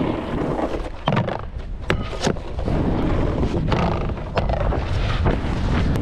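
Snowboard sliding and scraping over snow, with wind rushing on the microphone and several sharp clicks or knocks spread through.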